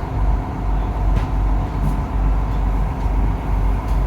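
Whale-watching boat's engine running, a steady low rumble.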